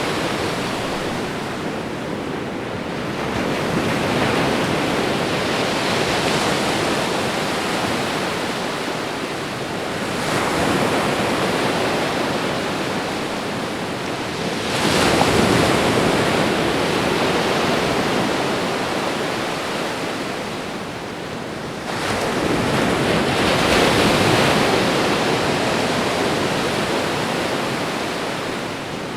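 Ocean waves breaking and washing up on the shore in slow, repeated surges every five to seven seconds, the strongest about halfway through.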